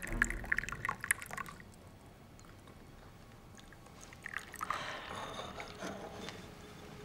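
Tea poured from a clay teapot into small clay cups: a splashing trickle for about the first second and a half, then a softer stretch of similar liquid sound around four to six seconds in.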